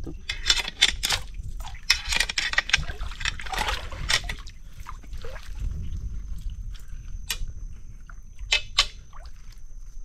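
Shallow creek water sloshing and splashing as someone wades in it and probes with a crab-hooking rod, busiest in the first few seconds, then a few sharp ticks near the end. A faint steady high tone sits under it.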